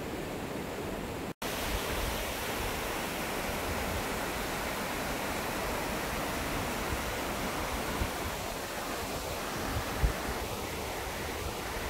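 Steady rushing of a mountain stream over the rocks of a gorge, with low wind rumble on the microphone. The sound cuts out for an instant about a second and a half in, and there is a single thump near the end.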